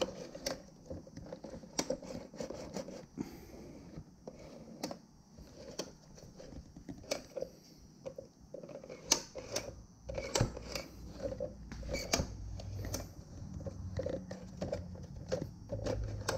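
Scattered clicks, taps and rattles of the plastic fuel pump module and its parts being handled and fitted together on a wooden workbench. A low steady hum comes in about ten seconds in.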